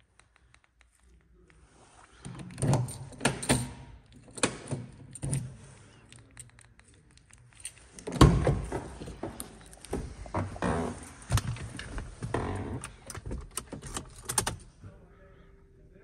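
Car key rattling and clicking in the driver's door lock of an Opel Zafira as it is worked, with a run of clicks and knocks; about eight seconds in, a louder clunk comes as the door handle is pulled.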